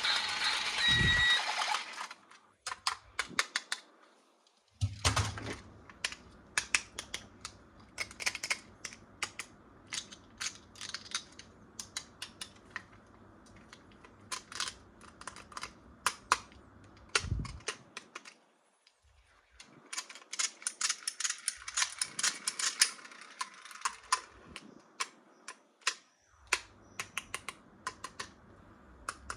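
Plastic toy packaging and toy parts handled by hand: a burst of crinkling at the start, then a long run of sharp clicks and taps at irregular spacing, with a few short pauses.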